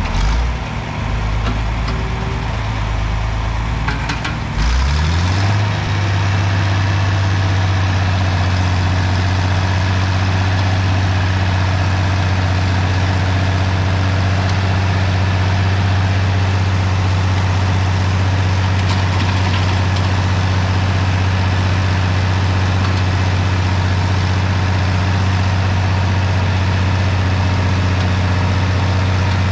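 Farm tractor engine running as a bogged tractor is worked out of the mud. About five seconds in the engine revs up, its pitch climbing, then holds a steady speed.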